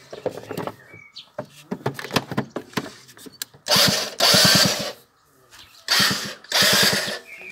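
A scooter's electric starter cranking in two bursts of a little over a second each, with a fast even pulsing under the whir, stopping without the engine catching. Before that, light clicks and rattles of parts being handled at the battery compartment.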